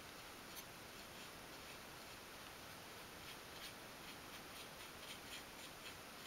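Faint, soft ticks and scratches of a size one detail paintbrush dabbing paint onto a miniature wooden drawer front, scattered and irregular over a low hiss.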